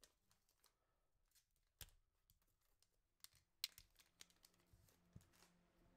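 Faint crinkling and a few sharp clicks of a foil Pokémon booster pack being torn open and its cards handled. The loudest click comes a little past halfway.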